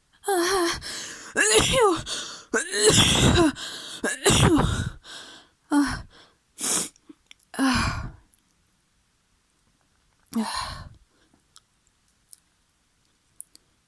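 A person sneezing several times in quick succession, messy sneezes with voiced, pitch-gliding build-ups. A few shorter, quieter bursts of breath follow.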